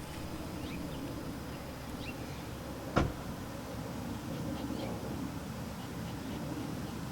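Outdoor ambience with a low steady rumble and a few faint high chirps, broken by one sharp knock about three seconds in.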